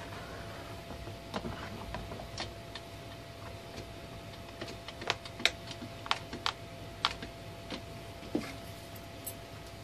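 Scattered light clicks and taps, irregular and a few at a time, from a hand and arm pressing carpet-covered decks into place inside a cardboard barrel. A faint steady hum sounds underneath.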